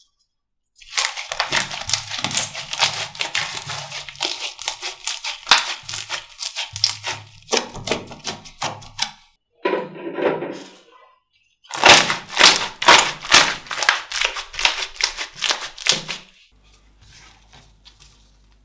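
Slime being squeezed and worked by hand, giving rapid runs of crackling pops and clicks, with a softer squelch between the two runs.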